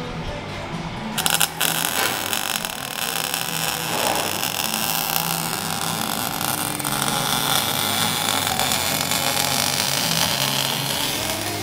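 MIG welding on exhaust piping under the car: a steady crackling hiss from the arc, with a few sharp pops as it strikes about a second in.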